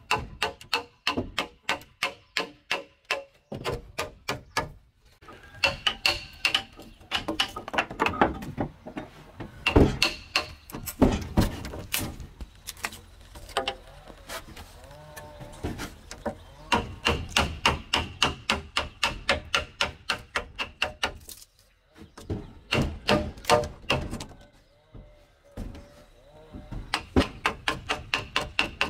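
A chisel driven into a wooden beam with quick, even hammer blows, about three strikes a second, in runs broken by short pauses, as a notch is cut in the timber.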